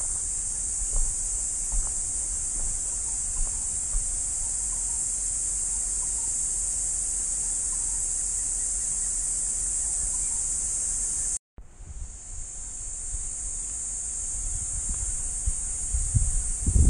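A steady high-pitched chorus of insects, with a low rumble and a few soft knocks on the microphone. The whole sound cuts out suddenly about two-thirds of the way through, then fades back in.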